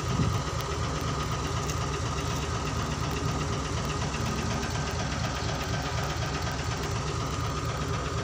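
Dump truck's diesel engine running steadily with its tipper body raised, unloading, with a low, even pulsing rumble and a thin steady whine above it.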